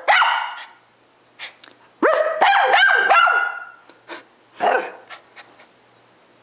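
Small dog barking in short, high-pitched barks: one at the start, a quick run of about four around two seconds in, and one more about a second after that.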